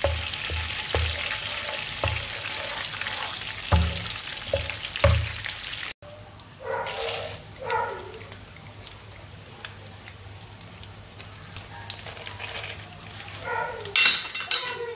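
Melted butter sizzling and bubbling in a nonstick frying pan, with a wooden spatula knocking against the pan several times. About six seconds in the sizzle drops to a quieter, steadier hiss, with a few short louder sounds near the end.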